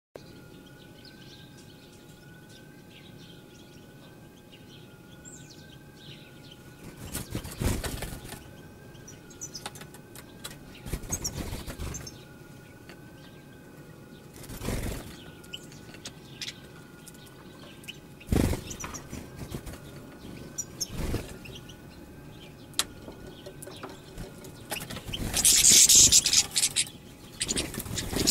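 European goldfinches giving faint high twittering chirps, among several brief rushing noises, the loudest near the end. A faint wavering tone runs underneath throughout.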